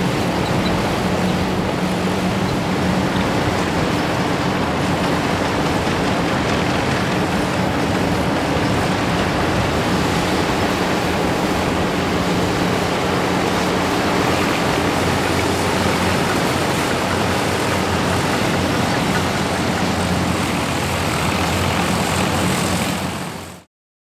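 Several vintage Massey-Harris 21 combine harvesters at work in wheat: their engines and threshing gear run together as one steady mechanical drone with a low hum under a broad hiss. The sound cuts off abruptly near the end.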